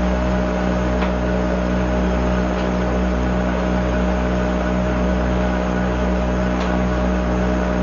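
Steady hum and hiss with a low throb that pulses about two or three times a second.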